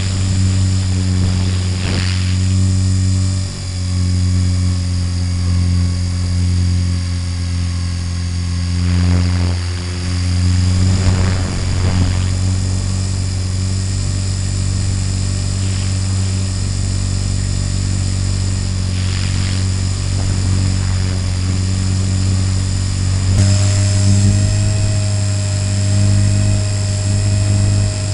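Electric RC helicopter's motor and rotor, heard through its onboard camera's microphone, making a steady droning hum with a few brief swells. Near the end the hum jumps to a slightly different pitch.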